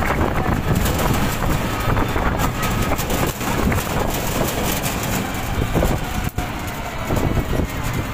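Steady road-traffic noise from vehicles moving in a rally, with many small knocks and rattles. It drops out sharply for an instant about six seconds in.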